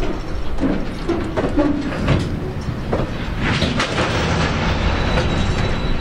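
Electric freight train passing, its wagon wheels clacking irregularly over the rail joints, with strong wind rumbling on the microphone.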